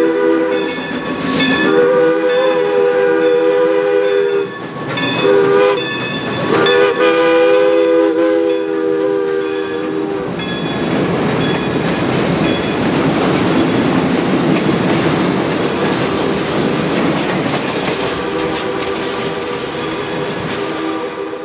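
New Hope & Ivyland No. 40 steam locomotive's chime whistle blowing the grade-crossing signal: the end of a long blast, then a long, a short and a final long blast lasting about four seconds. From about ten seconds in, the passenger coaches roll past over the bridge with a steady rumble and clatter of wheels on rail.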